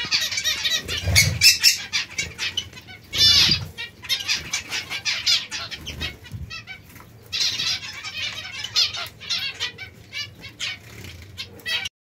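Small flock of zebra finches chattering, many short repeated calls overlapping without pause, with a brief flutter of wings about one and three seconds in.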